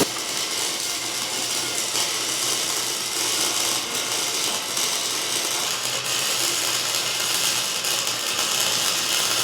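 A 110-volt gasless flux-core wire welder running a continuous bead, its arc crackling steadily.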